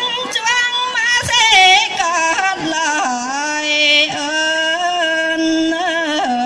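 A woman singing into a microphone, amplified, holding long notes with a strong waver and sliding between pitches; she drops to a lower held note about three seconds in.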